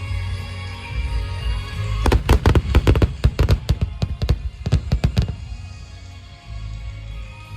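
A rapid volley of firework bangs, dozens of sharp reports packed into about three seconds, starting about two seconds in, over steady background music.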